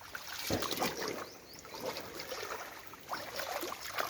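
Water sloshing and splashing in short, irregular bursts.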